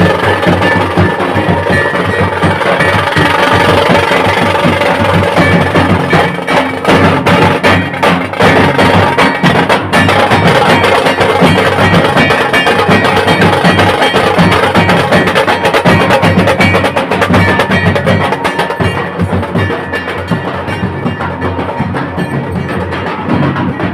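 Dhol drums beating with a shehnai playing over them, loud and continuous.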